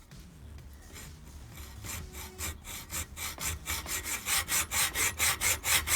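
Hand sawing by hand: back-and-forth saw strokes start softly about two seconds in and build into a steady, louder rhythm of about four strokes a second.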